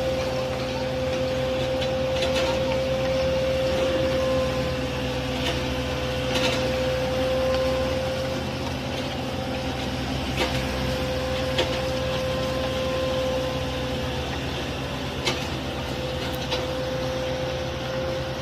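Heavy road construction machinery running steadily: a low engine drone with a steady whine over it, and a few sharp clicks or knocks.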